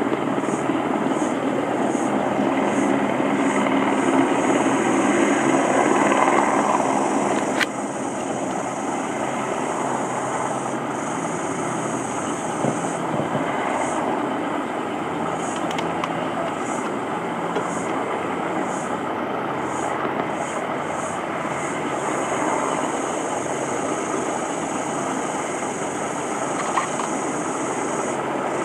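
Steady drone of distant motor engines. It swells over the first seven seconds or so, then drops suddenly to a lower, even level. A high-pitched buzz pulses on and off over it.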